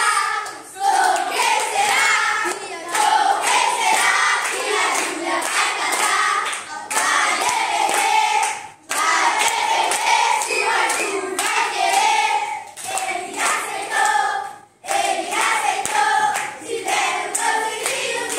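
A group of children singing a birthday song together with steady rhythmic hand clapping; the singing stops briefly twice.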